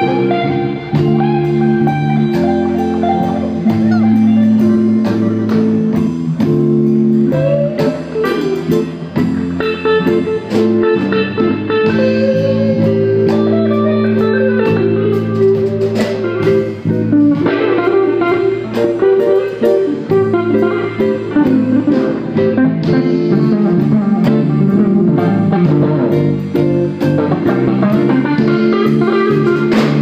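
Live blues band playing, with an electric guitar taking an instrumental solo over the band's steady backing.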